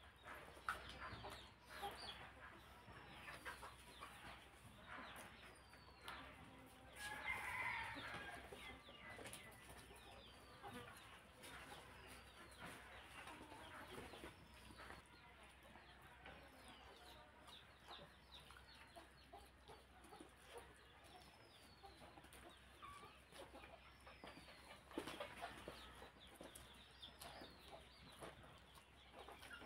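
Quiet hand-eating sounds: fingers mixing rice with curry and chewing, as faint clicks and smacks. Behind them a bird's short falling chirp repeats about once a second, with a louder burst of calling about seven seconds in.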